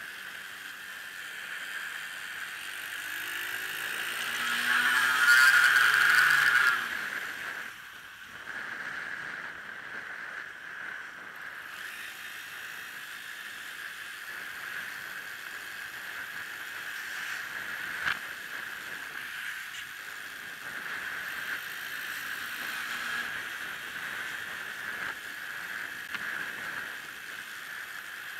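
Bicycle making an odd noise that remains after it was fixed: a steady high-pitched whir. It swells loudest about five seconds in, with a rising tone, and there is a single sharp click later on.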